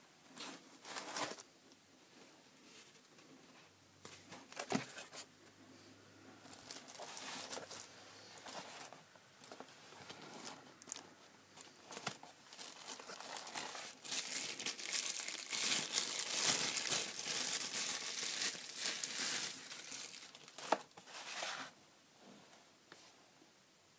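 Plastic packaging (bubble wrap and a clear plastic bag) crinkling and rustling in irregular bursts as an eyepiece is unwrapped by hand, densest and loudest for several seconds past the middle. A couple of sharp knocks, one about five seconds in and one near the end.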